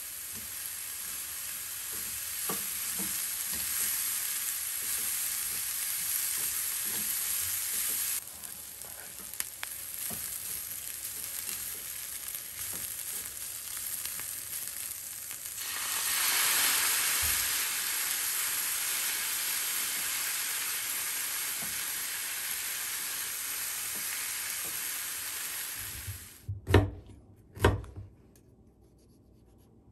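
Julienned carrots sizzling in sesame oil in a frying pan, stirred with chopsticks that tap lightly against the pan; the sizzle gets louder in the middle. Near the end the sizzling stops and two sharp knocks about a second apart follow, the loudest sounds here.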